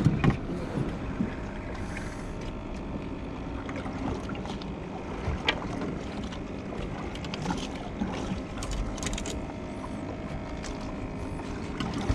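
A 100 hp outboard motor running steadily on a small boat, with a few knocks.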